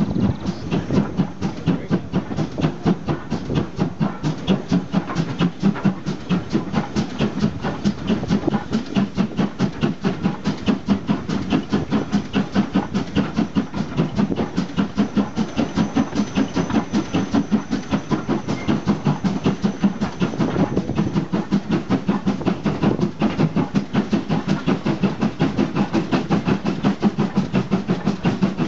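Steam train running on the line, with a fast, steady rhythmic beat.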